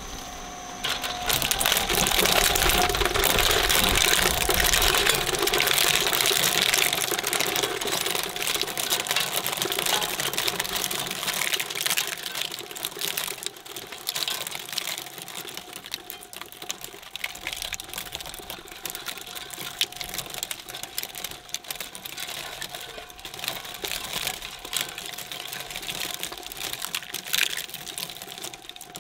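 Twin-shaft shredder's steel cutters chewing through a LEGO Technic car model: a dense, rapid crackle of plastic parts snapping and breaking over the steady whine of the shredder's drive. The crackling is loudest for the first dozen seconds, then thins to scattered cracks.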